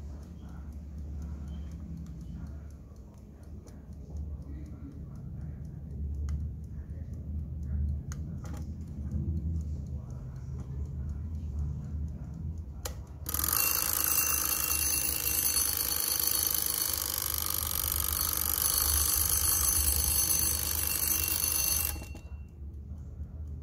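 Vintage Wehrle brass mechanical alarm clock's alarm ringing: a loud, rapid, continuous bell ring that starts suddenly about 13 seconds in and runs about nine seconds. It cuts off abruptly when the shut-off knob on top is pressed.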